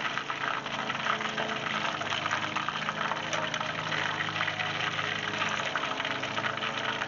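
Breaded yellow perch deep-frying in hot oil in a cast-iron pot, a steady crackling sizzle with many small pops, over a steady low hum.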